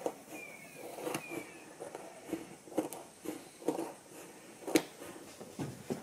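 Scissors cutting through quarter-inch foam-backed vinyl boat flooring: a series of short snips, roughly one every half second to a second, the sharpest one about five seconds in.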